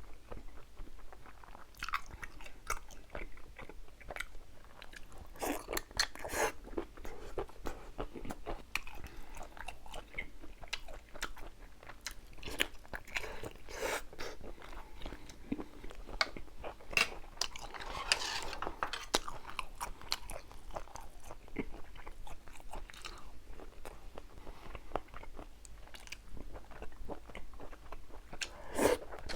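Close-miked chewing and biting of braised seafood, starting on a whole squid: a steady run of irregular sharp wet clicks and crunches.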